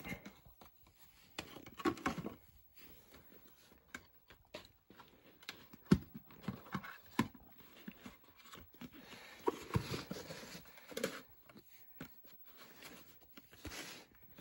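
A plastic VHS cassette and its cardboard sleeve being handled on a tabletop: scattered clicks and knocks of the plastic shell, with rustling and scraping as the tape is slid into the sleeve. The sharpest knock comes about six seconds in, and a longer stretch of rustling follows around ten seconds.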